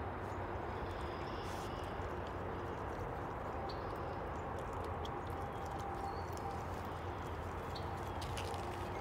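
Raccoons foraging through sunflower seeds on the ground, with faint scattered clicks of scuffling and seed crunching over a steady outdoor background hiss.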